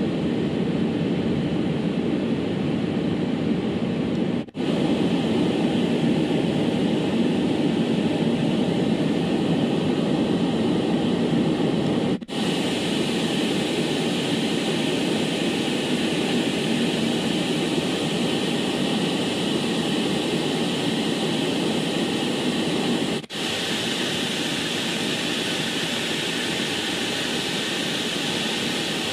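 Steady rushing noise from a white-noise machine recording, cut by three brief gaps about four and a half, twelve and twenty-three seconds in; after the second gap it sounds a little brighter.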